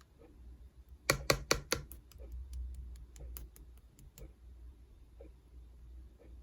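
Slime being squeezed and pressed by hand, giving a quick run of sharp clicking pops about a second in, then lighter scattered clicks.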